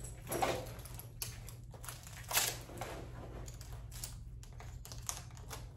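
A loaded duty belt and its gear being handled, wrapped around the waist and fastened over a Velcro-faced inner belt: two louder rasping swishes about two seconds apart, among scattered clicks and rattles of buckle and pouches.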